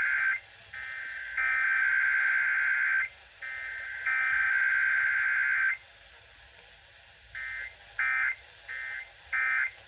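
Emergency Alert System digital data tones (SAME) heard off an AM radio broadcast: harsh buzzing data bursts. Long header bursts of about two seconds each come with short gaps between them. After a pause of over a second, a quick run of short end-of-message bursts begins, in pairs.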